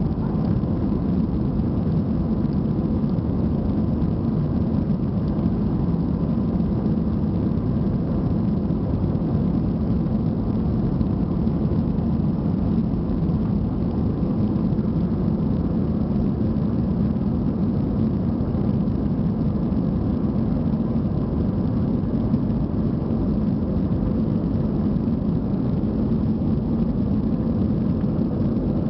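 Steady in-flight cabin noise of an Airbus A320 heard from a window seat over the wing: a low, even drone of engines and airflow, with a faint steady whine.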